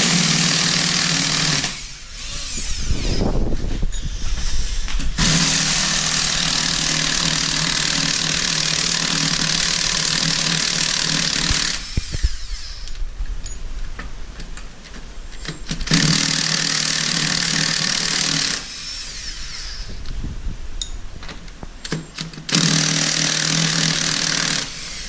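Impact gun running in four bursts, the longest about six seconds, with quieter clanking in between: the wheel nuts of a golf cart being run off.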